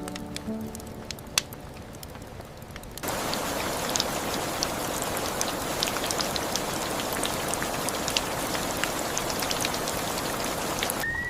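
Rain falling, with scattered drops ticking on a surface. About three seconds in it abruptly becomes much louder and denser, a steady hiss full of drop clicks.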